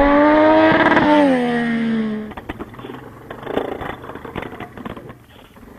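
A loud engine revs, its pitch rising slightly and then dropping back about a second in, and cuts off abruptly after about two seconds. What follows is much quieter: a quad bike's engine running, with scattered clattering clicks and knocks.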